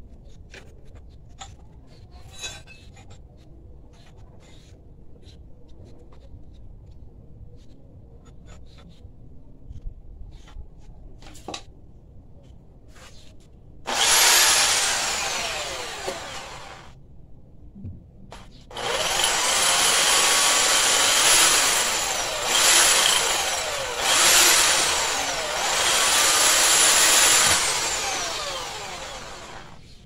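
Light clicks and taps of metal parts being handled at a bench vise, then an electric power tool running loudly in bursts from about halfway through. Its motor whine rises and falls several times, breaks off for about two seconds, and winds down near the end.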